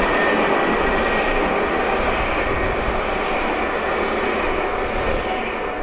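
Jerusalem Light Rail tram (Alstom Citadis) running past close by, a steady noise of steel wheels on rails and traction motors that grows slightly fainter near the end. A thin high whine fades out in the first second.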